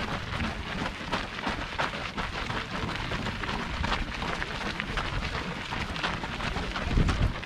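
Running footsteps of a group of runners on a path, a quick, scattered patter of footfalls, with wind rumbling on the microphone of the running camera, strongest near the end.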